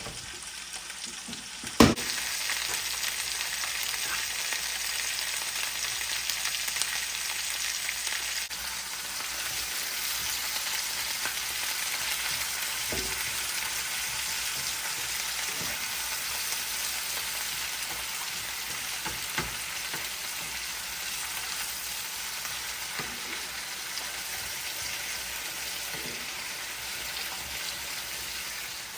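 Chicken and vegetables frying in oil in a pan, a steady sizzle while the chicken browns. A sharp click comes about two seconds in, and a few soft knocks follow later.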